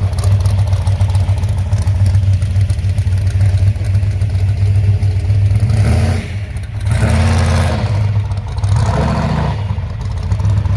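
Classic car engines idling and rolling past with a steady low exhaust rumble. A louder engine swells over it about six seconds in, then fades after about three seconds.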